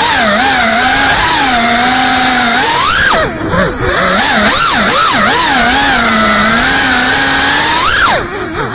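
FPV racing quadcopter's brushless motors whining, their pitch rising and falling with the throttle; the throttle is cut briefly twice, about three seconds in and near the end, and the whine drops away each time.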